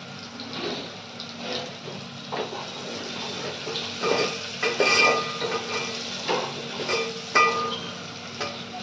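Garlic and spices sizzling in hot oil in a steel pot while a steel ladle stirs and scrapes the pot. The ladle gives several sharp clinks that ring briefly, bunched around the middle and once more near the end.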